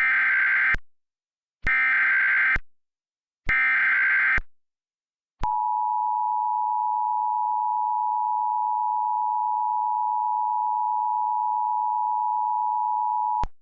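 Emergency Alert System SAME header: three bursts of screeching data tones, each about a second long and spaced about two seconds apart, followed by the two-tone EAS attention signal held steady for about eight seconds.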